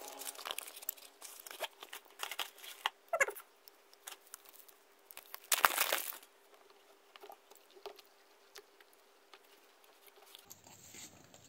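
Cardboard whetstone boxes and paper inserts being handled: irregular rustling and crinkling with scattered light taps, a short squeak about three seconds in and a louder rustle about halfway through.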